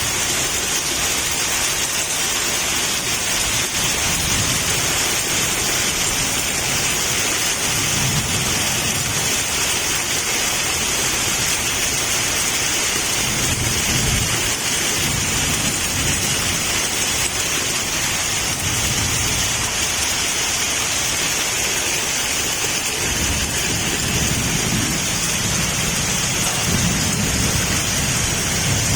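Heavy rain pouring down steadily in a loud, even hiss, with low rumbles coming and going several times underneath.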